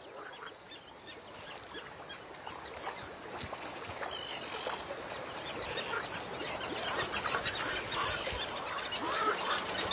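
Chorus of many overlapping short animal calls, growing steadily louder.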